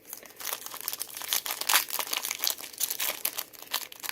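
Foil wrapper of a trading card pack crinkling as the pack is torn open and handled, a continuous irregular crackle.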